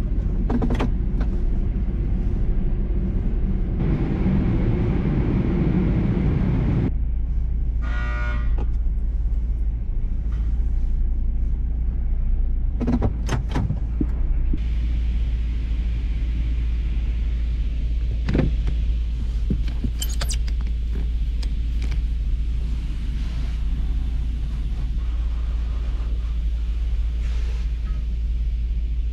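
Heard from inside the cab of a Hummer H3: the truck's engine runs with a steady low rumble, a little louder for a few seconds as it pulls forward. From about halfway through, the steady hiss of the touchless car wash's high-pressure spray hitting the body and windows joins in, with a few scattered knocks and clicks.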